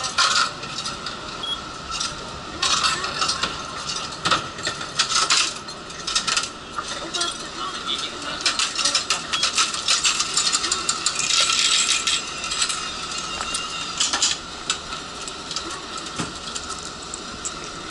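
Tram fare box taking passengers' coins: repeated clinks of coins dropped in and the clatter of its coin-handling mechanism, busiest in the middle, over a steady high hum.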